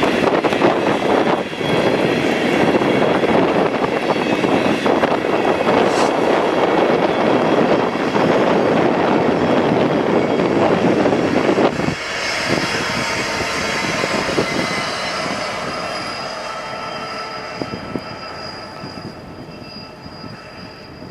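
Train cars rolling past on the rails, loud and steady. The sound drops suddenly about twelve seconds in, then fades away with a thin high wheel squeal near the end.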